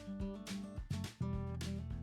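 Background music with plucked and strummed acoustic guitar over a steady beat. The music dips briefly about a second in.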